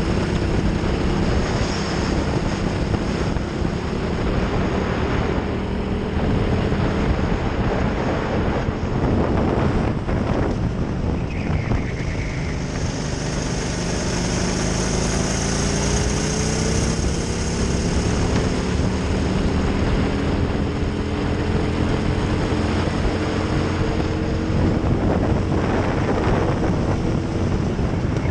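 Racing kart engine heard onboard, its revs dropping and climbing slowly as it brakes for and accelerates out of corners, under heavy wind noise on the microphone.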